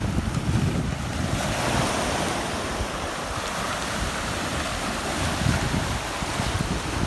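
Sea waves washing onto the shore, with wind gusting on the microphone; a wave surges about a second and a half in.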